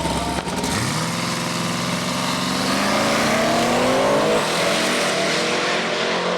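Two Holden Commodore drag cars accelerating hard down the strip. The engine notes climb steadily in pitch for several seconds, starting about a second in.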